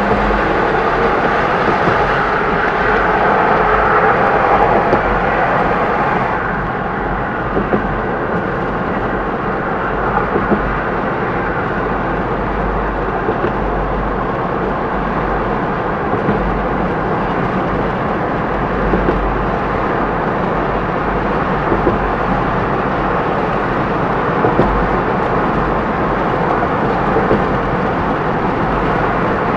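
Steady tyre and road noise of a car driving on a multi-lane road, with a low rumble underneath. It is a little louder and brighter for the first six seconds, then settles.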